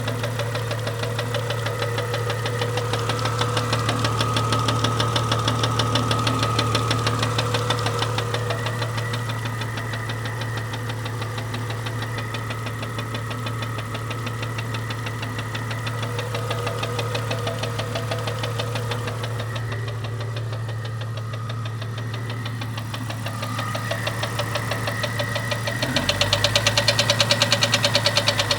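1998 Jeep Cherokee XJ's 4.0-litre inline-six running with a rapid, regular knocking tick that new lifters have not cured; the owner hears it at half crankshaft speed, changing only with rpm and not with load, and takes it for a cam-related fault rather than rod knock or piston slap. The knock gets louder near the end.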